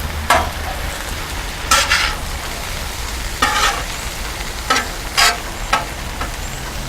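Vegetables sizzling on a Blackstone flat-top steel griddle, with a metal spatula scraping and clanking on the griddle top about once a second as they are tossed.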